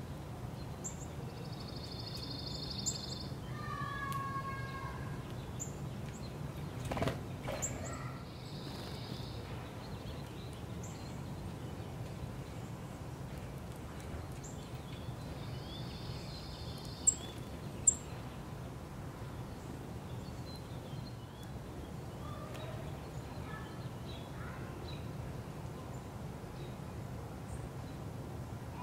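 Steady low background hum with small songbirds calling now and then: a few buzzy chatters, a pair of falling notes and brief high chips. Two sharp taps about a second apart, a little past halfway, are the loudest sounds.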